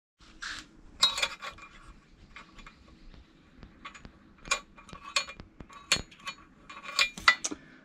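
Small steel butt hinge, not stainless, swung and tapped by hand against an aluminium solar mounting rail: a string of sharp metallic clicks and clinks at irregular intervals, the loudest about a second in.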